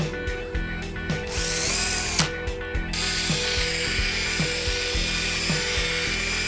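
Rotary polisher with a foam pad running against a gloss-lacquered speaker cabinet: a steady whirring hiss with a thin high whine, starting about three seconds in. Before it, a brief rising whine ends in a sharp click, and background music with a steady beat runs underneath.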